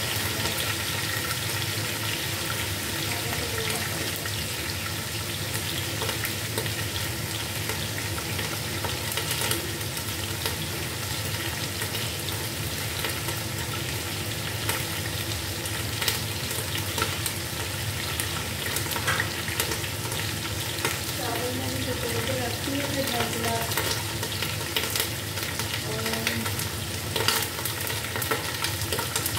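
Chicken pieces frying with garlic-ginger paste in a pot: a steady sizzle with scattered crackles and pops.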